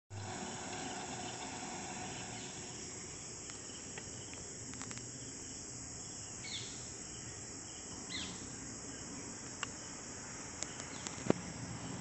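A steady, high-pitched insect chorus from the roadside forest, with two short falling calls in the middle and a few sharp clicks near the end.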